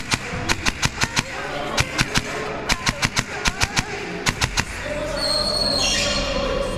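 Airsoft rifle fired in rapid semi-auto strings, sharp cracking shots about seven a second in several short runs. For the last couple of seconds the shots stop and a steady held tone, like music, comes up.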